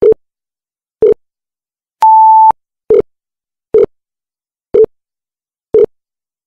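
Countdown timer sound effect: short low beeps about once a second, with one longer, higher beep about two seconds in.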